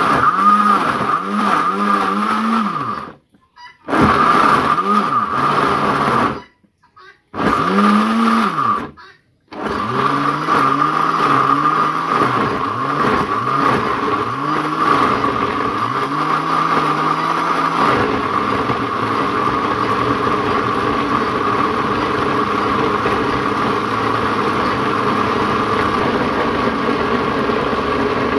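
Electric kitchen blender grinding a thick fig chutney fishing-bait mixture into a fine paste. It runs in three short bursts with brief stops, then runs steadily. Its motor whine is overlaid until about halfway by a lower churning note that rises and falls about once a second.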